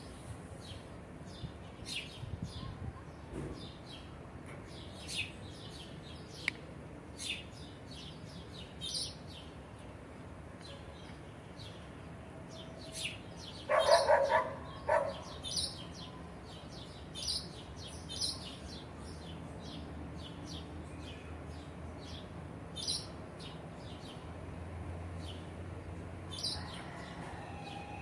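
Small birds chirping, short high chirps repeating every second or two. About halfway through, a loud squealing cry comes in a few quick pulses.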